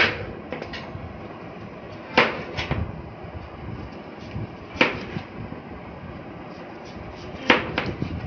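Kitchen knife cutting through raw sweet potato and knocking on the cutting board: a few sharp knocks a couple of seconds apart, sometimes two in quick succession.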